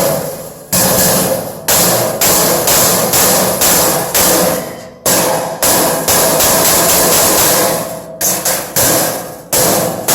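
A hammer striking sheet-metal ductwork, a run of blows roughly one or two a second, each ringing briefly like thin metal.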